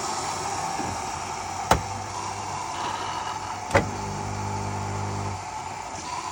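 Coffee machine running with a steady hiss, two sharp clicks a couple of seconds apart, and a buzzing hum for about a second and a half after the second click.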